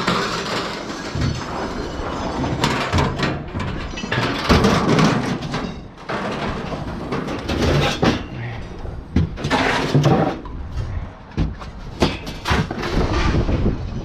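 Heavy scrap metal being shifted and dropped: irregular clanks, bangs and scrapes of steel pieces, over a low rumble.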